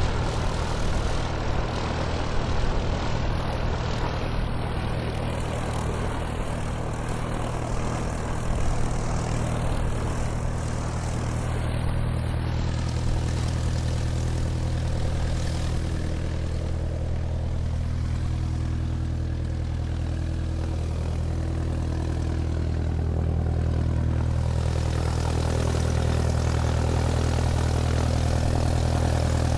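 Airplane taxiing on the ground, its engine running with a steady low drone that grows slightly louder over the last few seconds.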